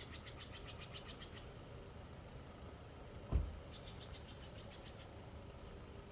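A bird's rapid trill of evenly spaced high notes, heard twice: once at the start and again about four seconds in. A single low thump, like a bump against the microphone, comes between the two trills.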